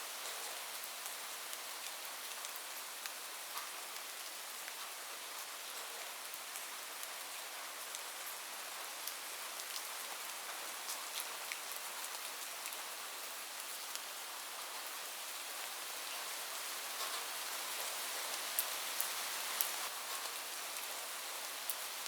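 Heavy rain falling steadily on a roof, with single drops ticking sharply over the hiss; it swells a little near the end. No thunder is heard.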